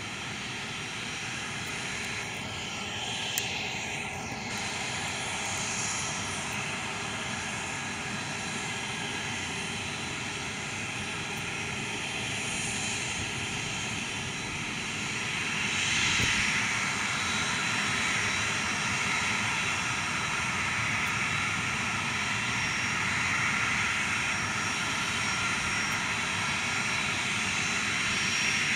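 Boeing 737-400's CFM56-3 turbofan engines running at taxi power as the airliner moves along the taxiway: a steady jet engine noise that grows louder about halfway through as the aircraft turns toward the listener.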